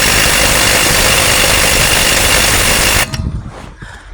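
Power impact wrench running on a seized wheel lug bolt with stripped threads, a loud steady run that cuts off suddenly about three seconds in.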